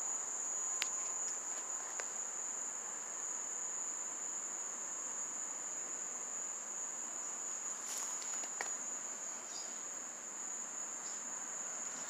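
Mole cricket buzzing from its burrow: a loud, unbroken, steady high-pitched trill.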